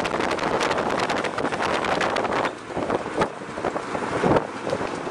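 Wind buffeting the microphone over the engine and road noise of a moving mototaxi, a motorcycle rickshaw. The rush is steady at first, eases about halfway through, and a loud thump comes near the end.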